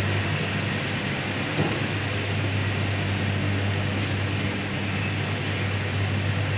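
Sausages sizzling on a gas grill over a steady burner hiss, with a constant low hum underneath and a faint tap as a sausage is turned.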